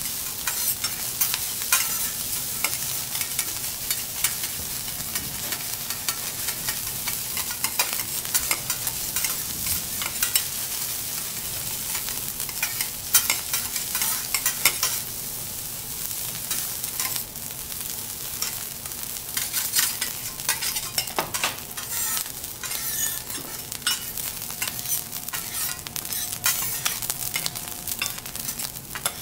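Garlic fried rice sizzling on a steel teppanyaki griddle while two metal spatulas scrape and tap against the plate in quick, irregular clicks.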